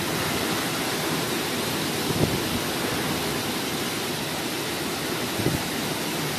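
Heavy cyclone rain pouring in a steady rush, with strong wind, and two brief low thumps about two and five and a half seconds in.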